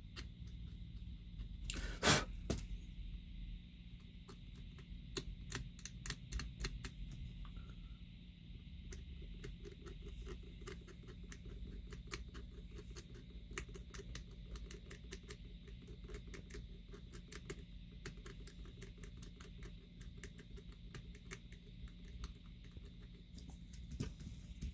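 Hand tools working on a circuit board at a workbench: many small, irregular clicks and scrapes, with one louder knock about two seconds in, over a steady low hum.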